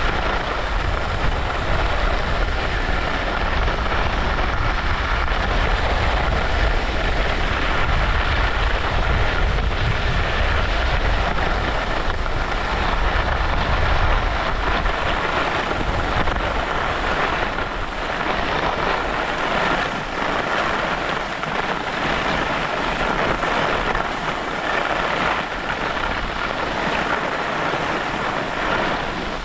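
Wind buffeting the microphone while skis slide over packed, groomed snow in a steady downhill run; the deep wind rumble eases a little past halfway.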